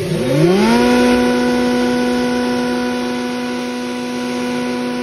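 A 5 HP half-jali grinder is switched on: its electric motor and rotor spin up with a whine that rises in pitch for about a second, then run steadily at full speed.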